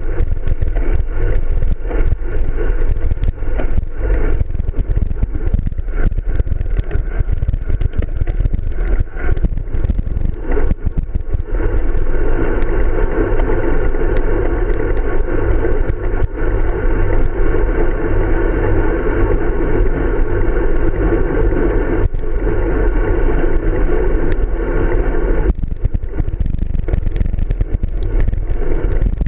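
Wind buffeting the microphone of a camera on a road bike's handlebars, with tyre rumble and rattling knocks over rough, patched asphalt. From about twelve seconds in, a steadier buzzing hum joins in, and it cuts off a few seconds before the end.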